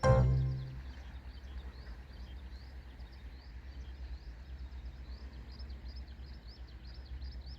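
Outdoor ambience: a steady low rumble with birds chirping over it, many short high rising chirps a second, after a music note dies away in the first second.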